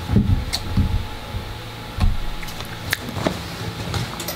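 Camera handling noise: scattered light knocks and clicks with a few dull low thuds, as the camera is moved and adjusted at close range.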